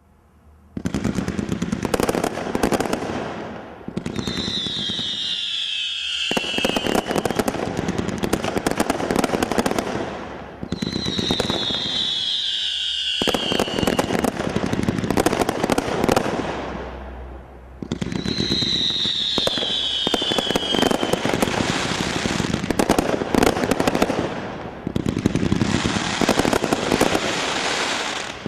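Brothers Pyrotechnics Airboss 2, a 100-shot fan barrage, firing volley after volley of rapid bangs and crackles. There are brief lulls between volleys, and a whistle falls in pitch three times.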